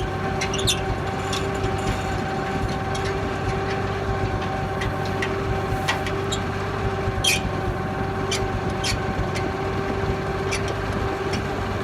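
Tractor engine idling steadily with a constant hum, and scattered light clicks as the hay rake's adjustment levers are cranked down.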